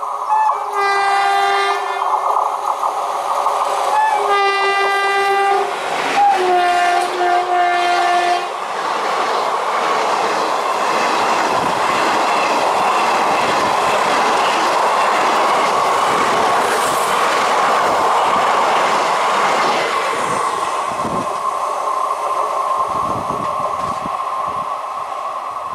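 Electric locomotive's air horn sounding three blasts of one to two seconds each, the third a little lower in pitch. It is followed by the steady rumble of passenger coaches rolling past close by, with wheel knocks over rail joints in the last few seconds.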